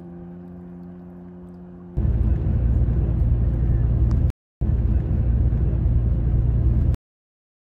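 A steady low hum with a few held tones, then about two seconds in a loud, uneven low rumbling of wind buffeting the microphone. The rumbling drops out briefly and cuts off abruptly near the end.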